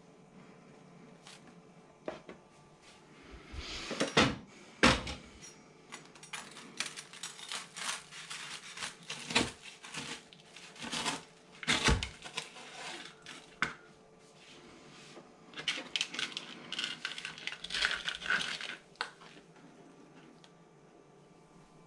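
Crunching toast and sharp knocks of a large kitchen knife on a cutting mat as a toasted BLT sandwich is pressed together and cut in half, in several scattered bursts. The two loudest knocks come about four and five seconds in.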